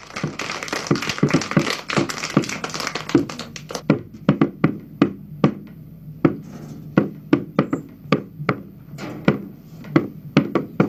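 Small rope-tensioned drum struck with drumsticks: a dense flurry of strokes for the first few seconds, then single beats at about three a second.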